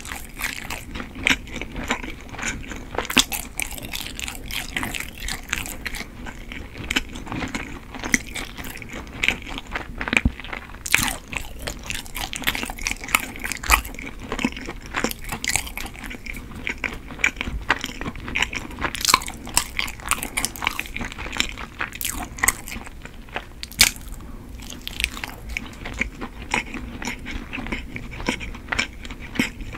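Close-miked chewing of chewy Korean rice cake (tteok), a dense run of quick wet mouth clicks and smacks, with bites taken from a crumb-coated piece.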